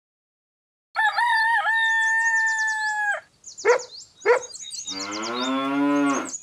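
Farmyard sound effects: a rooster crows for about two seconds, two short hen clucks follow, then a cow moos, with small birds chirping throughout.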